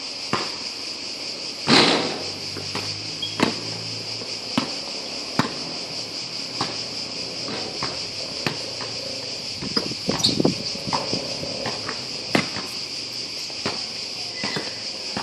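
A steady high insect drone runs throughout, with the irregular thumps of a basketball bouncing on an outdoor court; the loudest thump comes about two seconds in and a quick cluster follows around ten seconds in.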